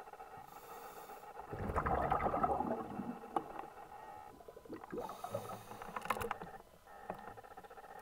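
Underwater ambience: a steady hum with a louder burst of rushing noise from about one and a half to three seconds in, and scattered sharp clicks and crackles around the middle.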